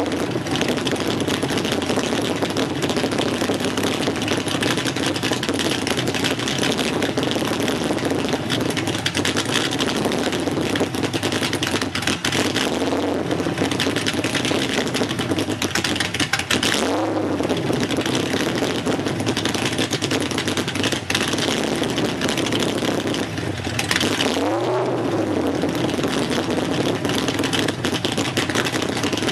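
Car engine with aftermarket heads and cam, running without a tune through a true dual exhaust, idling steadily. It is blipped twice: once a little past halfway and again later, the pitch rising and falling each time.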